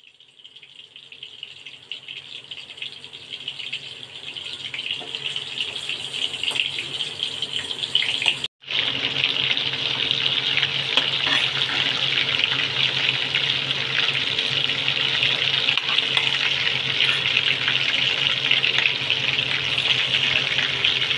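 Meat kofta balls frying in hot oil in a pan: a steady sizzle with fine crackling. It grows louder over the first several seconds, breaks off for a moment about eight seconds in, then continues louder and even.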